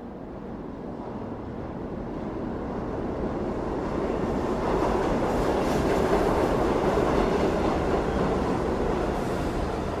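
New York City subway train running into the station, growing steadily louder and loudest about halfway through before easing off slightly.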